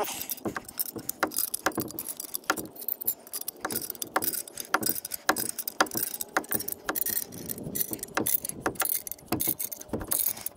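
Irregular metallic clinks and knocks, about two a second, from hand tools and metal hardware being handled.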